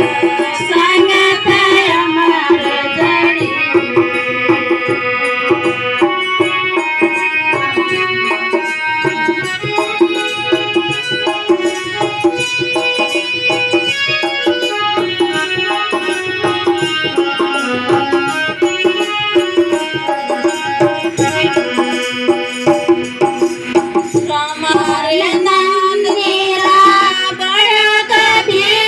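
Devotional bhajan music: a held, steady melody instrument over a regular hand-drum beat, with voices singing at the start and coming back in near the end.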